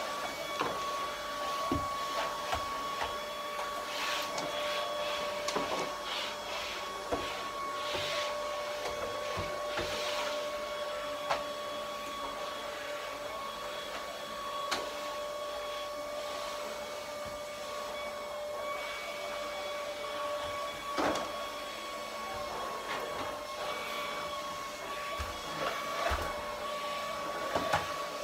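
Canister vacuum cleaner running with a steady, high motor whine while the floor nozzle is worked over a rug, with occasional short clicks and knocks.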